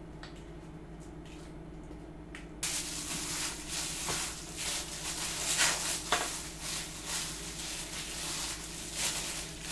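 Gloved hand mixing sliced raw pork with a red pepper paste marinade in a metal tray: a busy, irregular mixing noise that starts about two and a half seconds in, after a quiet start with only a low steady hum.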